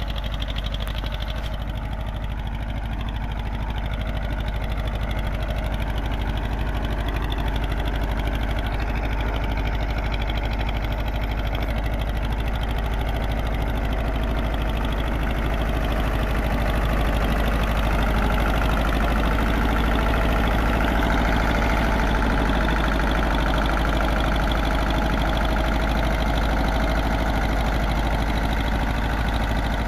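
TAFE tractor's diesel engine running steadily, getting a little louder about halfway through.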